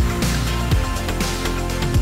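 Background music with a steady beat: deep drum hits and bass notes under a constant cymbal hiss.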